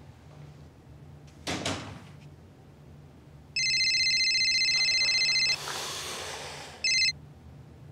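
Mobile phone ringtone: a steady electronic ring for about two seconds, then a soft noisy stretch, then a brief second ring cut off short as the call is answered.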